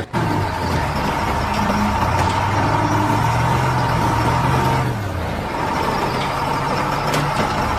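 A heavy vehicle's engine running under load, its pitch climbing slowly and then dropping about five seconds in, with a steady high whine over it.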